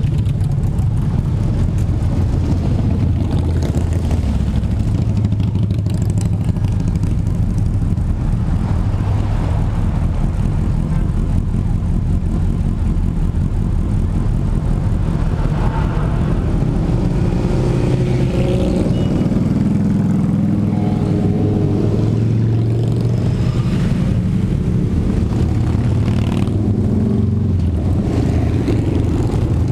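Steady low engine rumble, with a pickup truck and then a line of motorcycles riding past close by in the second half.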